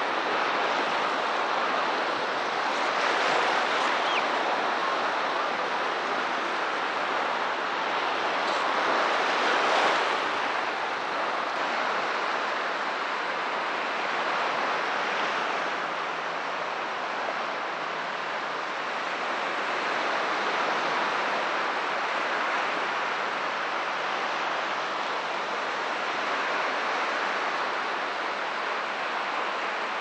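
Sea surf washing onto the beach: a steady hiss of breaking waves that swells and fades every few seconds, loudest about ten seconds in.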